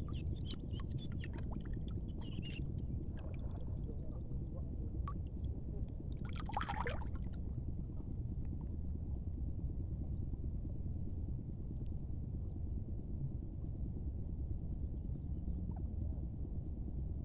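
Shallow water sloshing and gurgling in a steady low churn, with a few light clicks in the first couple of seconds and one short, brighter sound about six and a half seconds in.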